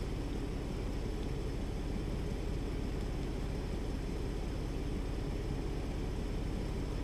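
Ford Bronco's engine idling steadily, a low, even running sound.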